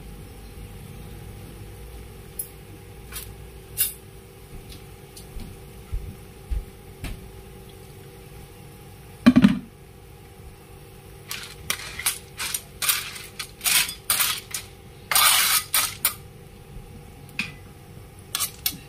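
A spatula stirring sea snails in a metal wok, their shells clacking against the pan and each other. At first there are scattered clicks and one louder knock about halfway. Then comes a dense run of clatter and scraping.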